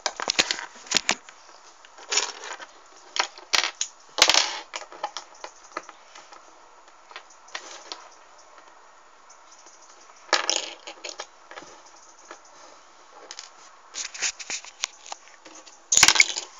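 Handling noise: fingers scraping, tapping and knocking against a phone close to its microphone, in irregular bursts separated by quiet stretches.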